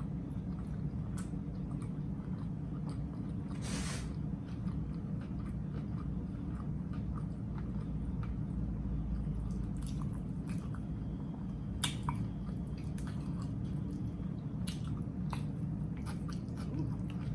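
A person chewing mouthfuls of a chopped grinder sandwich close to the microphone, with wet mouth clicks scattered through it. A steady low hum runs underneath, and a short rustling hiss comes about four seconds in.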